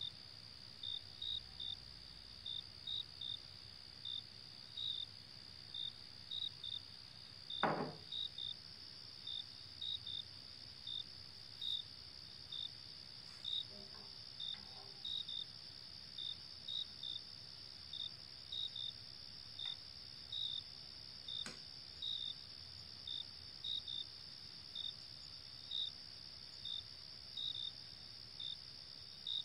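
Crickets chirping: short high chirps, often in twos and threes, about two a second, over a steady high insect trill. A single knock sounds a little before 8 seconds, and there are faint clinks around 14 seconds as peas are ladled from the metal pot.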